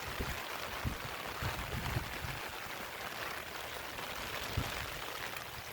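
Water trickling and splashing, with a few soft low thumps and a sharp tick near the end.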